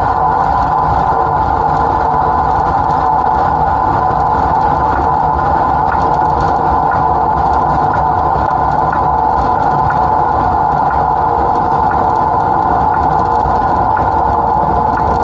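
Class 07 Ruston & Hornsby diesel shunter's engine running steadily under load, heard close up from the front buffer beam, with a strong steady mid-pitched drone.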